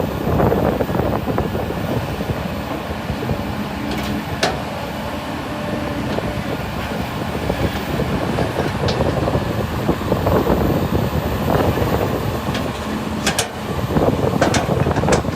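Diesel engine of a hydraulic excavator running steadily under work, with a few sharp clicks about four seconds in and again near the end.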